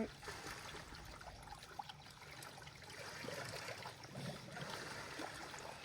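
Faint, steady trickling of water in a hot-spring soaking pool.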